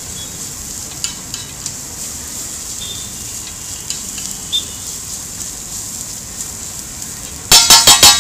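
Egg bhurji sizzling on a large iron tawa as a steel spatula scrapes and taps the griddle now and then. Near the end comes a loud, rapid clatter of the spatula striking the tawa, about eight strikes a second for about a second.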